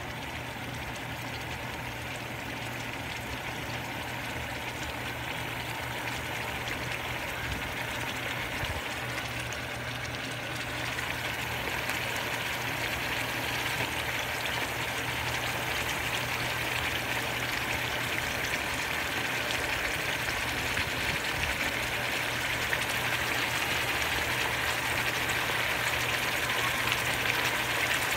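Food and sliced red onion sizzling in hot oil in a frying pan: a dense, steady crackle that grows louder through the clip, most of all from about a third of the way in. A steady low hum runs underneath.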